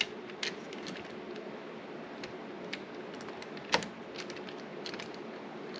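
Scattered small metallic clicks and taps of door lever hardware being handled and lined up in the door, with one louder knock a little past the middle.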